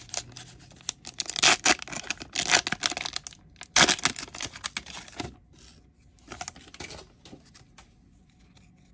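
Foil trading-card booster-pack wrapper being torn open and crinkled by hand, a run of sharp crackling rips over the first five seconds. Fainter rustling follows as the cards are slid out of the pack.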